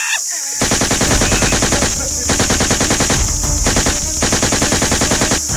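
Rapid automatic gunfire in three long bursts, broken by short pauses about two and three and a half seconds in.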